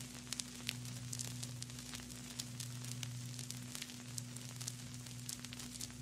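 Vinyl record crackle from a stylus riding the groove of a spinning record: irregular pops and clicks scattered over a soft hiss, with a steady low hum underneath.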